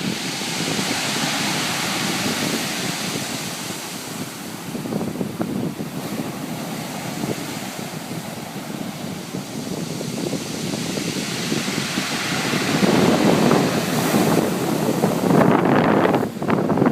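Waves breaking on a pebble beach, the backwash rolling and rattling the stones. The surf swells louder about thirteen seconds in.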